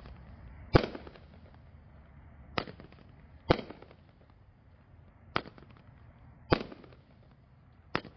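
500-gram, 12-shot fireworks cake (The Bomb by Dynamite Fireworks) firing shot by shot: six sharp bangs, one to two seconds apart, as shells launch from its tubes and burst in the air.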